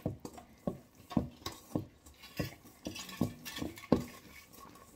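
A mixing utensil stirring brownie batter in a stainless steel pot, knocking against the metal sides about twice a second.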